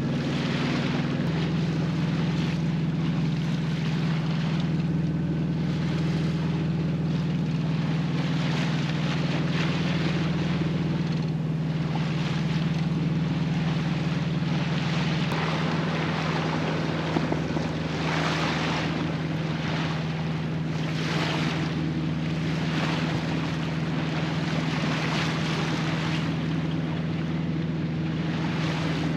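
Sailboat's inboard engine running steadily while motoring through flat water, a constant low drone, with water rushing along the hull and wind buffeting the microphone in soft swells.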